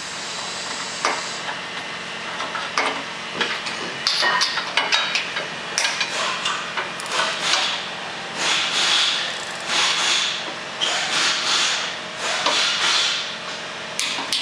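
Ratchet wrench on the anchor-bolt nuts of a two-post car lift column: a run of repeated ratcheting strokes, about two a second, as the column's base plate is bolted down to the concrete floor.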